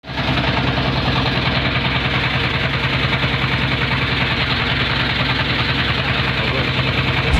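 A small wooden fishing boat's engine running steadily while the boat is underway, with a fast, even throb.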